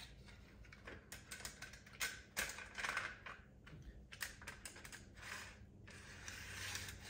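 Plastic model train track pieces clicking and rattling as they are handled, then a model train car pushed by hand along the track, its wheels rolling with a rattle and a few clicks.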